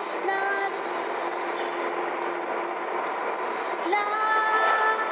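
Steady road and tyre noise inside a moving car's cabin. Over it come held pitched tones: a short one just after the start and a longer, louder one from about four seconds in.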